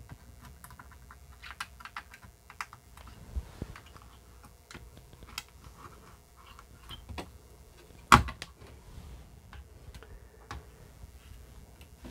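Scattered small clicks and taps of a 6526 CIA chip being fitted and pressed into its socket on a Commodore 64C motherboard, with one loud knock about eight seconds in.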